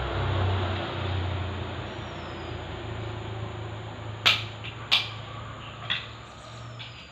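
Perodua Viva's engine running steadily at idle, with three sharp knocks a little past halfway.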